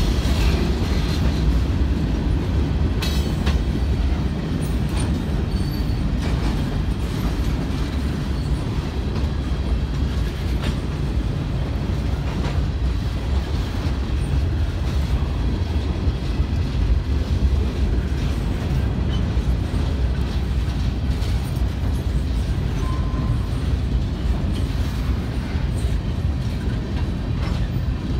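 Freight train of boxcars and tank cars rolling past, a steady low rumble of steel wheels on the rails with occasional sharp clicks from the wheels and rail joints.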